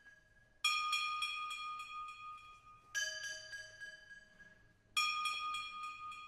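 Pieces of resonant metal struck in a percussion solo: three strikes about two seconds apart, each left to ring and fade. The strikes alternate between two differently pitched metals, with lighter taps between them.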